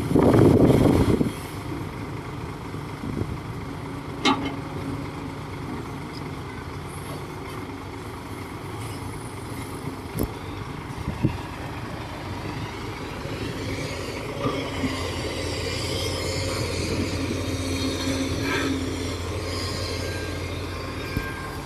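Komatsu D58 bulldozer's diesel engine running steadily, with a loud burst in the first second and several sharp metallic clanks scattered through.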